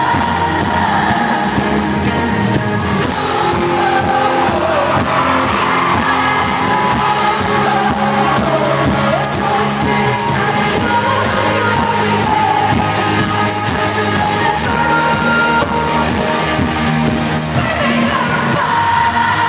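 Live pop concert heard from among the audience in an arena: a female singer's amplified vocals over loud band backing, with held notes at the start and again near the end.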